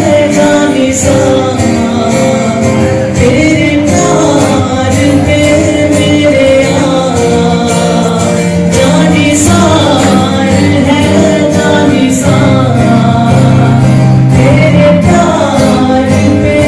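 A man singing a song while strumming a Yamaha acoustic guitar into a microphone, with sustained sung notes over steady chords.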